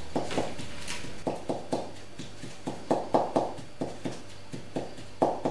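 Pestle pounding lavender flowers in a ceramic mortar: a run of irregular dull knocks, about three a second.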